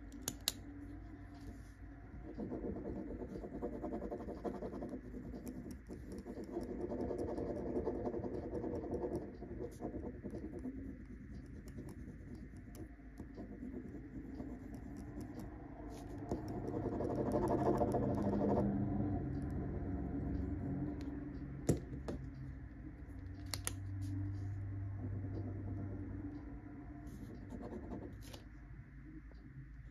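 Ballpoint pens, a steel-barrelled ballpoint and a Tombow Air-press, scribbling on a pad of lined paper in several bouts of scratchy writing noise a few seconds long, with a few sharp clicks between them.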